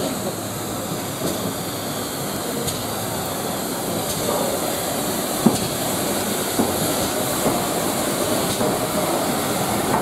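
GWR Modified Hall 4-6-0 steam locomotive 6960 Raveningham Hall rolling slowly along the platform, its wheels rumbling on the rails and growing louder as it comes nearer. A couple of sharp clicks from the wheels on the rail joints come about halfway through.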